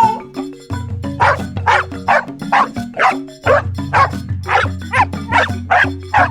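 A dog barking about a dozen times in an even rhythm, starting about a second in, over background music with a steady bass line.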